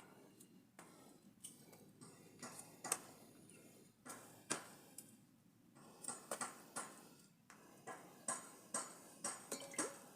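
A series of irregular light clicks and knocks, some with a short ring, about a dozen in ten seconds, like small objects being handled and set down.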